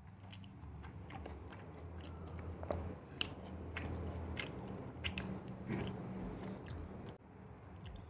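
Close-miked eating sounds: a person chewing a mouthful of nasi lemak with rice, peanuts and fried anchovies, with many small wet mouth clicks and crunches. A steady low electrical hum runs underneath.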